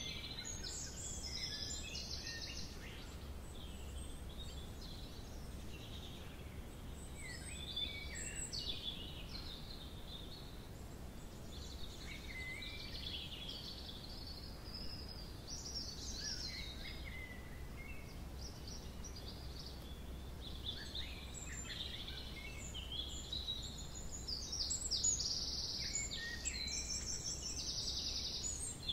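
Several songbirds singing and calling at once, with overlapping high chirps, whistles and trills and a fast trill near the end, over a low steady rumble.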